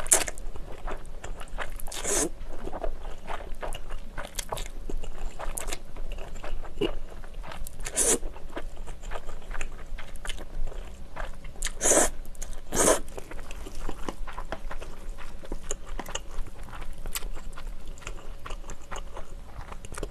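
Close-miked eating of spicy stir-fried ramen noodles: slurping and chewing with many small wet mouth clicks, and a few louder moments spread through.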